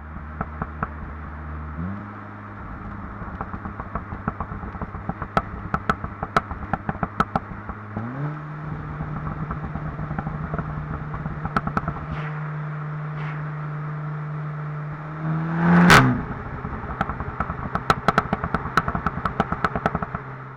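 SEAT Leon Cupra 290's turbocharged 2.0-litre four-cylinder through its sport exhaust with the middle silencer deleted, running at a steady idle that steps up to a higher held speed about two seconds in and again about eight seconds in. A stream of sharp exhaust crackles runs throughout, and there is one quick, sharp rev near the sixteen-second mark.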